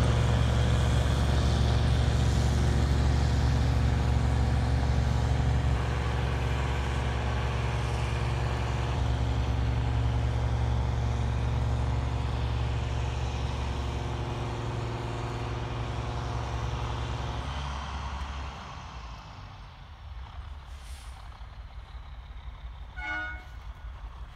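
Heavy diesel trucks pulling a loaded semi-trailer away under load, their engines a steady low drone that fades as they recede, then drops away sharply about three quarters of the way through. Near the end a brief high-pitched tone sounds once.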